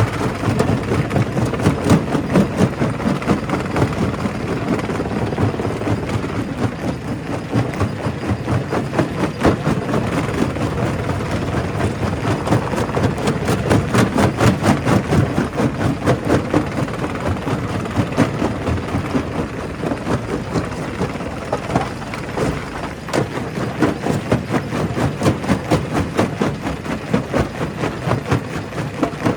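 Primary rock crusher working, its machinery running steadily under a dense, uneven clatter of stone cracking and knocking as rock is crushed.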